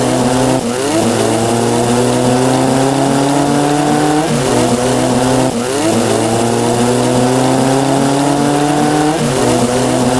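Synthesized counting sound effects: several layered electronic tones, each repeating a fast rising blip, that blend into a dense, engine-like buzzing drone. The pitch of the layers jumps a few times: about half a second in, around four and a half seconds, five and a half seconds, and nine seconds.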